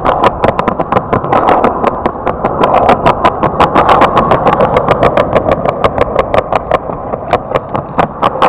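Skateboard rolling fast along a sidewalk of square paving slabs. The wheels make a steady rumble, with a sharp click each time they cross a joint between slabs, about six clicks a second.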